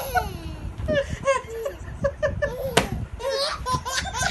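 A baby laughing in short bursts of high-pitched giggles, with a single sharp click about three seconds in.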